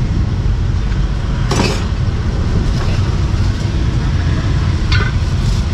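Steady low background rumble with two sharp knocks of a heavy meat cleaver striking a wooden chopping block, about a second and a half in and again near the end.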